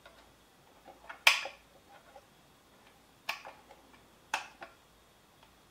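Sharp plastic clicks from the casing and end cover of a SAL dimmable LED driver being handled: three clicks, the loudest about a second in, the others about two and three seconds later.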